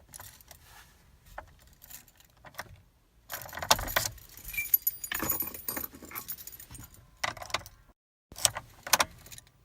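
Car keys jangling on their ring in the ignition, with clicks as the key is turned; the engine does not crank or start. This is a no-start fault that the driver later finds needs the shifter moved all the way to drive and back to park.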